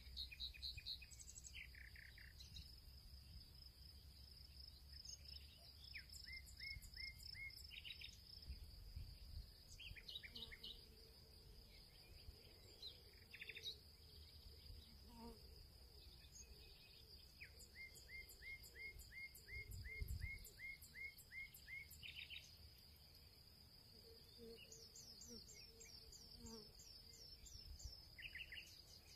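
Faint birdsong, several quick runs of repeated chirps, over a steady high-pitched insect trill. There is a soft low thump about twenty seconds in.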